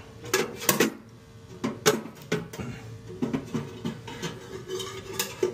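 Hand driver working a screw on a boiler's sheet-metal panel: irregular sharp metallic clicks and clinks, a few with a brief ring.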